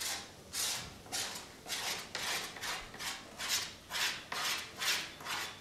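A small hand tool scraping the wall of a hand-built clay bowl, in short repeated strokes about two a second.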